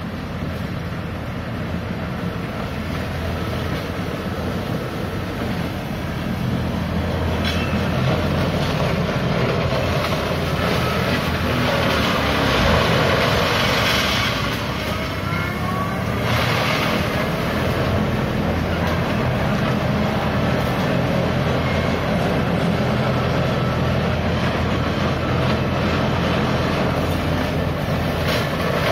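Tractor engine running under load while driving a rear-mounted rotary implement that shreds dry palm fronds and churns soil. It grows a little louder about a quarter of the way in, with louder surges of shredding noise around the middle.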